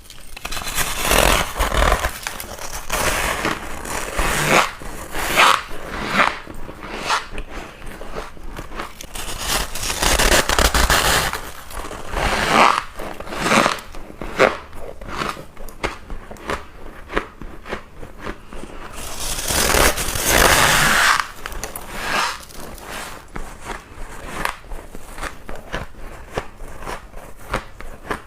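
Close-up biting and chewing of freezer frost ice: a dense run of crunches and squeaky, scraping crackles of packed frost between the teeth, with a longer, louder scrape-like stretch about twenty seconds in.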